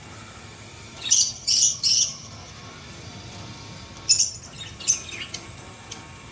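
A few short high-pitched chirps or squeaks over a low steady background: three close together about a second in, and two more around four to five seconds in.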